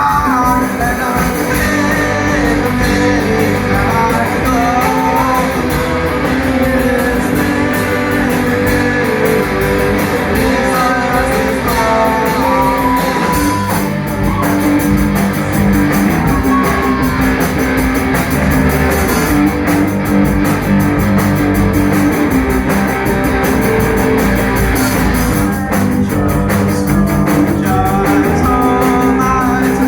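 Live rock band playing a song, with electric guitar and drums.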